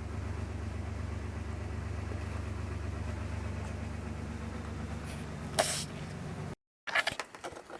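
An engine idling with a steady low hum, and a single sharp click a little after five seconds in. It cuts off suddenly near the end, followed by a few light clicks and rustles.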